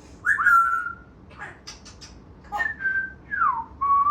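African grey parrot whistling: a clear whistle that swoops up and holds, then, after a pause, three short whistles in a row, the middle one gliding downward.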